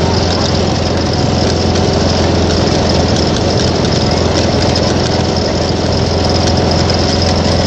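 Lawn mower's small engine running steadily close to the microphone, loud and even throughout.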